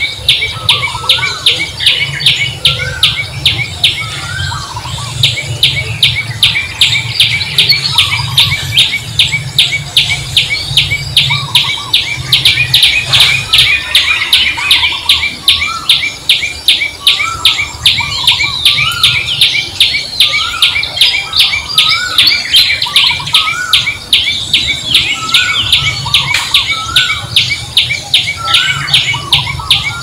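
Outdoor birds and insects chirping: a fast, even chirp repeated about three to four times a second throughout, with short rising chirps about once a second.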